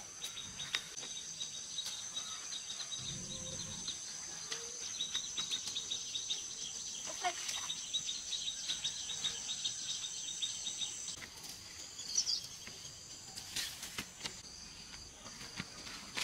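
Insects calling in a steady high-pitched chorus, with one fast, ticking trill that stops about two-thirds of the way through. A few soft clicks and rustles of plants are heard over it.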